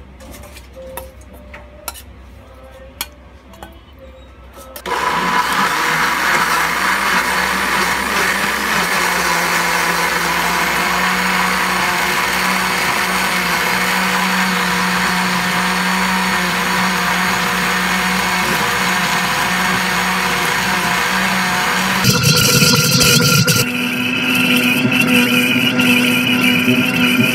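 Tough Mama countertop blender puréeing cooked vegetables, rice and water into baby food. A few clicks come first, then the motor starts suddenly about five seconds in and runs steadily and loudly. Near the end its note steps up higher.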